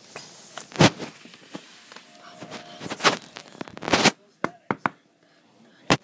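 Handling noise from a handheld recording device being moved about: a string of sharp knocks and bumps, loudest a little under a second in, around three and four seconds in, and just before the end, with a brief faint steady tone midway.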